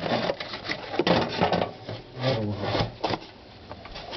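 Plastic shock-absorber retainer of a top-loading washing machine being levered up and pushed out of its mount: irregular scraping, rubbing and clicking with a few sharp knocks.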